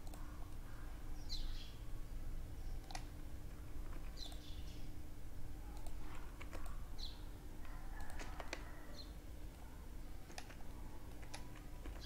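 Computer keyboard keystrokes and mouse clicks, a handful of scattered sharp clicks spread over several seconds, over a faint steady hum.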